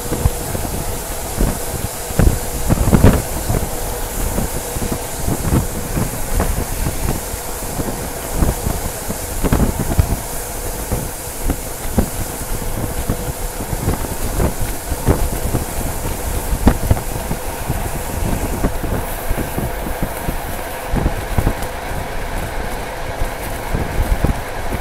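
TLK passenger train coach running along the line, its wheels clattering over rail joints in irregular knocks over a steady rolling rumble, heard from an open window. A high rushing hiss eases about three quarters of the way through.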